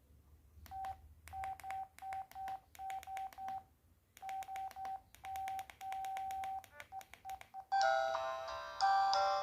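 ZTE X175 mobile phone playing a built-in ringtone through its speaker: electronic beeps all at one pitch, in short groups with brief gaps and a few longer beeps. Near the end a different, fuller ringtone with several notes at once starts, louder.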